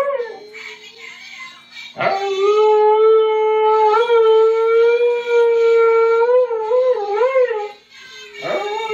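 Siberian husky howling: one long howl that swoops up into a steady held note for about four seconds, then wavers up and down before breaking off. The falling end of a previous howl opens it, and a new howl starts rising near the end.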